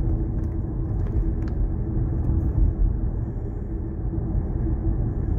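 Car driving along a paved road, heard from inside the cabin: a steady low rumble of engine and tyres with a faint steady hum.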